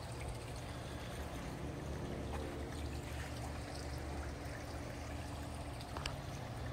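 Small fountain bubbler in a backyard goldfish pond, its water trickling and splashing steadily, over a steady low hum.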